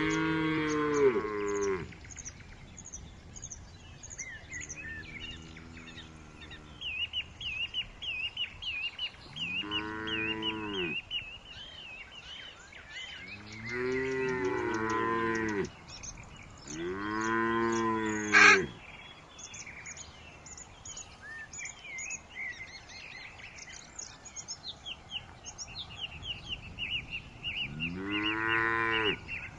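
Cattle mooing repeatedly, each moo lasting one to two seconds, some from two animals overlapping. Birds chirp quickly in the gaps, and there is one sharp click about two-thirds of the way through.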